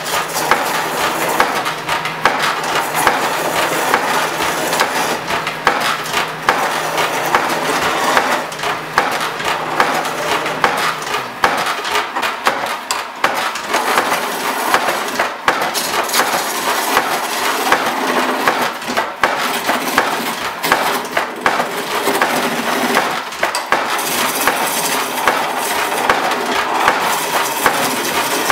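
Skew chisel cutting a spindle of kiln-dried yellow spruce spinning on a treadle lathe: a steady rough shaving and scraping, peppered with rapid ticks from the tool chattering, which the turner puts down to the dryness of the wood.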